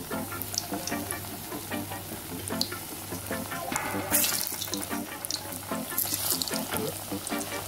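Plantain frying in hot oil: a sizzling hiss that surges about halfway through and again near the end, over background music.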